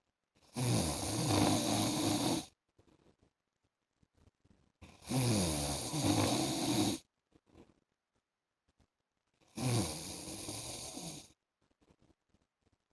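A man snoring: three long snores about four and a half seconds apart, each lasting about two seconds, with quiet breathing gaps between.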